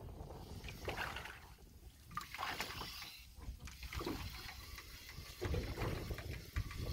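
Light water splashing and trickling, irregular and uneven, over a low rumble of wind on the microphone.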